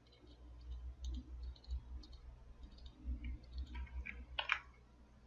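Faint, irregular clicks of a computer keyboard and mouse during code editing, with one sharper click about four and a half seconds in.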